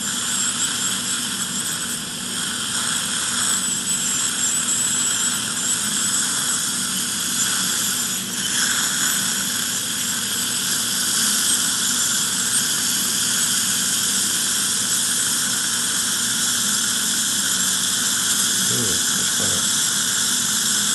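Ultrasonic dental scaler with a PEEK plastic implant insert running against titanium implant abutments: a steady high-pitched whine with a hiss of spray and suction.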